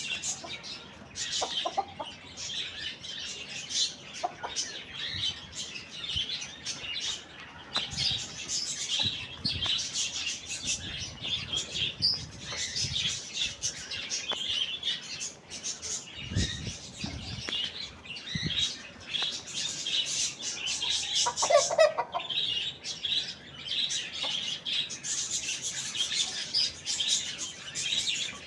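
Many small birds chirping continuously at a high pitch, with a few low thumps and one short, lower call about 21 seconds in.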